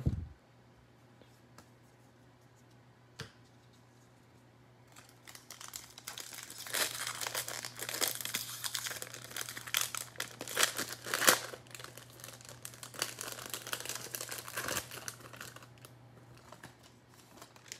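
Foil-lined wrapper of a 2021 Bowman Baseball jumbo hobby pack being torn open and crinkled by hand. The crinkling starts about five seconds in, is densest in the middle and tails off near the end, with a single click a few seconds before it and a faint steady hum underneath.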